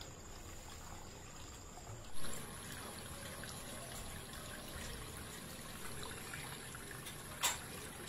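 Water trickling and splashing steadily over a small homemade cement waterfall fountain. There is a brief louder thud about two seconds in and a sharp click near the end.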